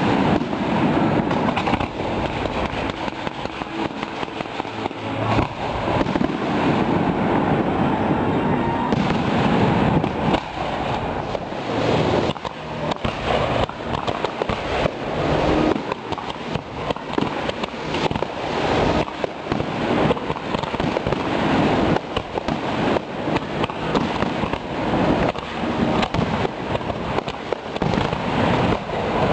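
Fireworks display going off: a continuous barrage of rockets and aerial shells, bang after bang with crackle between, rising and falling in intensity without a break.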